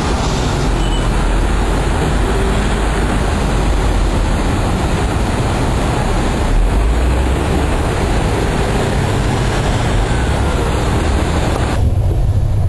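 A moving vehicle running with a steady low rumble and rolling noise. The upper hiss drops away abruptly near the end.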